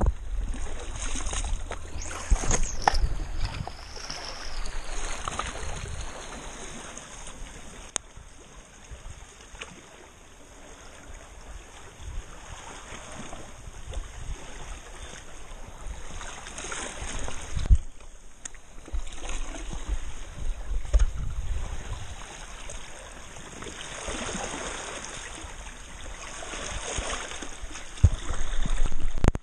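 Sea water lapping and splashing close around the camera as a swimmer moves through the shallows among rocks, with the odd low bump or knock against the camera.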